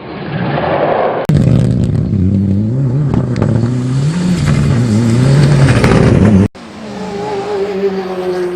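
Engine sound effects: after a brief rising rush of noise, a car engine revs, its pitch rising and falling over and over. About six and a half seconds in it cuts off abruptly and gives way to a steadier engine drone.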